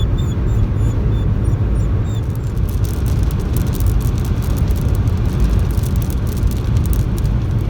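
Road and engine noise inside a car cruising on the highway: a steady low rumble, with a few faint short high chirps in the first two seconds.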